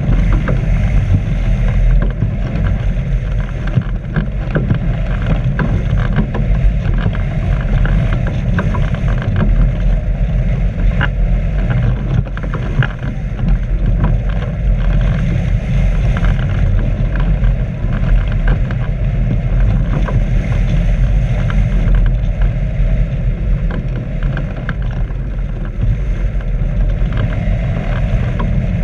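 Wind rushing and buffeting over a camera mounted on a hang glider in flight. It makes a loud, steady low rumble with scattered crackles.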